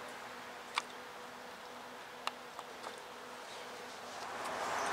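Faint steady buzzing hum with a few light clicks, about a second in and again around two and a half seconds in.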